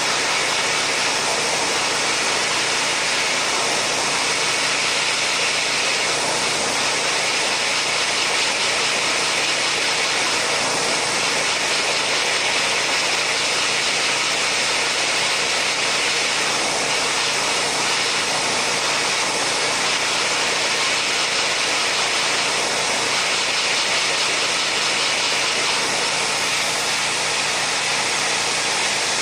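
Steady rush of air from the air supply that holds a marble floating in its jet, an even hiss with a faint low motor hum underneath, unchanging throughout.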